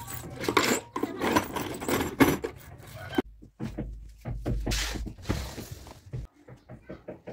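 Small metal screws and hand tools clinking and clattering on a concrete floor. About three seconds in this cuts to a low rumble with knocks: handling noise from a handheld phone being moved around.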